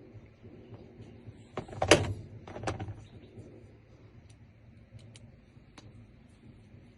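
Small metallic clicks and taps from a profile door-lock cylinder being taken apart, its pins and springs coming out one by one. A louder clack comes about two seconds in and another just before three seconds, then a few faint ticks.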